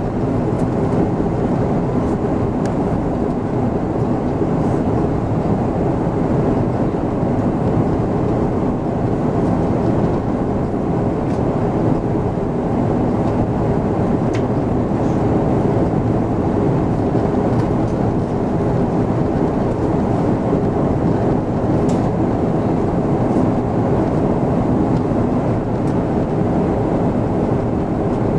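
Steady roar inside an Airbus A340-600's passenger cabin on approach: the Rolls-Royce Trent 500 engines and the airflow over the fuselage, heard through the cabin wall as a low, even rumble that holds constant.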